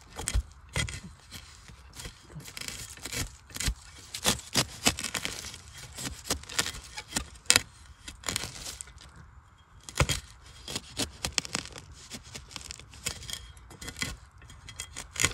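A metal digging blade scraping and chopping into loose soil and dry leaf litter: an irregular series of sharp scrapes and crunches with soil crumbling.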